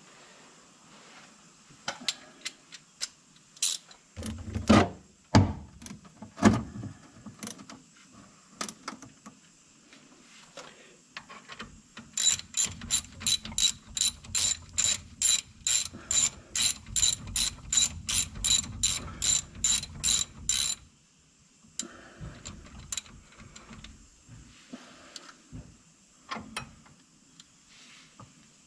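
Hand ratchet wrench clicking at an even pace of about three clicks a second for some nine seconds, tightening the disc brake caliper bolts. Before that come scattered clicks and a few heavier knocks.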